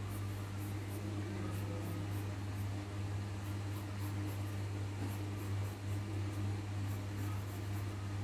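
Pencil strokes scratching faintly on paper as a pot outline is sketched, over a steady low hum.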